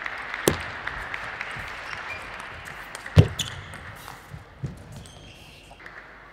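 Crowd applause in a large hall dies away as a table tennis rally is played: sharp, sparse knocks of the celluloid ball on bats and table, the loudest about three seconds in. The crowd starts up again near the end as the point is won.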